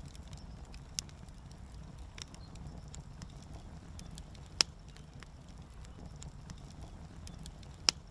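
Wood fire crackling, with irregular sharp pops over a low rumble. Two louder pops come about halfway through and near the end.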